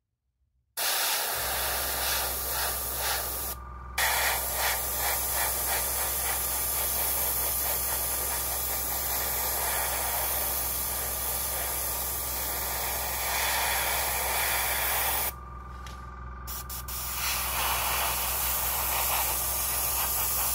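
Airbrush spraying paint in long bursts of hissing air. It starts about a second in, breaks briefly near four seconds, and eases off for a couple of seconds before a final burst near the end. A steady low hum runs underneath.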